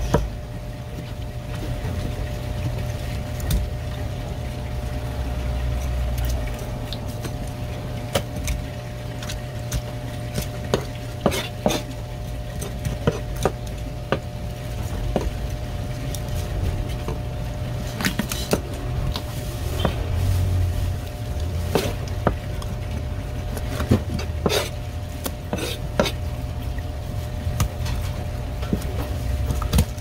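Scattered sharp clicks and knocks of a knife and tools working at a cutting board, over a steady low machine hum.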